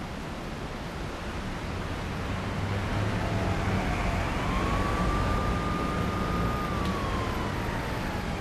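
Steady low road rumble of a car under way, with one high whining tone over it that rises about halfway through, holds for about two seconds, then slowly sinks.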